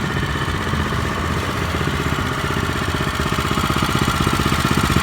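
Engine of a used Japanese walk-behind rotary tiller running steadily, its pulsing getting a little louder toward the end.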